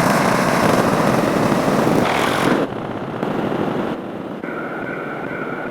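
A string of different sound effects spliced end to end, each cut off abruptly. First come loud noisy sounds, then about four and a half seconds in, a steady two-pitched tone.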